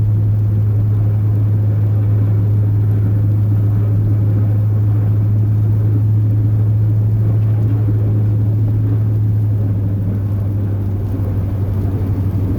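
Chevrolet plow truck's 8.1-litre Vortec big-block V8 running while the truck is driven, heard from inside the cab as a steady low drone; the engine has a leaking exhaust manifold. The drone eases a little about ten seconds in.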